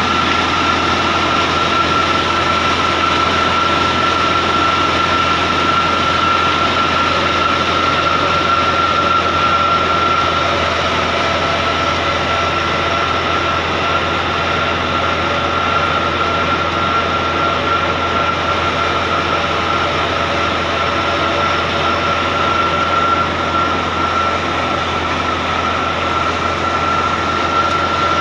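Fiat 640 tractor's diesel engine running steadily under load, driving a thresher through its PTO shaft, with the thresher's machinery running at a constant pace. A steady high whine sits over the drone.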